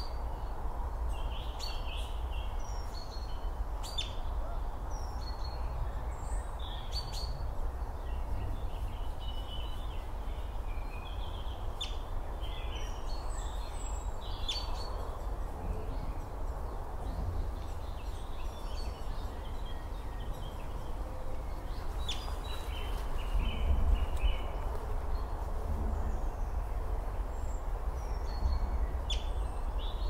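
Steady low rumble and hiss of open outdoor ambience, with many short, faint high chirps scattered throughout.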